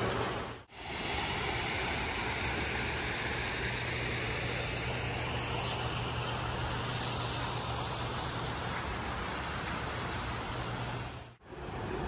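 Steady rushing of water spilling over a small stone cascade into a pool, with a faint low hum beneath. The sound cuts out for a moment near the start and again near the end.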